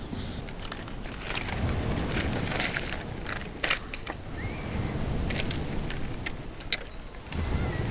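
Wood campfire crackling, with irregular sharp pops and snaps, over a steady rumble of wind on the microphone.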